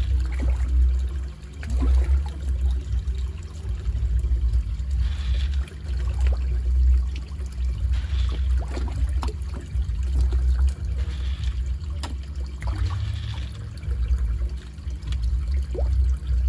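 Water trickling and splashing into an aquaponics fish tank from its PVC inflow pipe, over a steady low rumble, with soft swells every few seconds.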